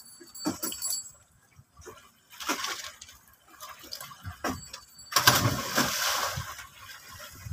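A scuba diver dropping into the sea from the side of a boat: a big splash about five seconds in, with water churning for a couple of seconds after it.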